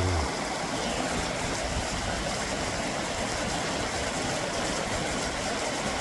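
Valley stream water flowing, a steady, even rushing noise.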